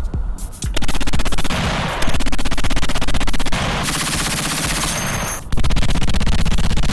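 Machine gun in rapid automatic fire. A few single shots come first, then about a second in it breaks into long, continuous bursts. The fire eases for two stretches and comes back at full loudness near the end.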